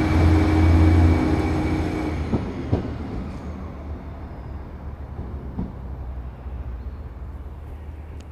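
Class 153 diesel railcar's Cummins engine running as the single-car train pulls away. The engine note drops about a second in and then fades steadily as the unit draws into the distance, with a few faint clicks along the way.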